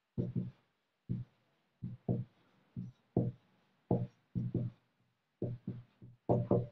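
Marker pen writing on a whiteboard: a run of short, dull strokes and taps, often in quick pairs, about two a second.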